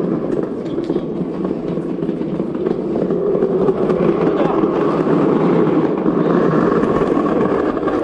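The small wheels of a children's ride-on drift kart rolling fast over a tiled floor: a steady rolling rumble that grows a little louder about halfway through.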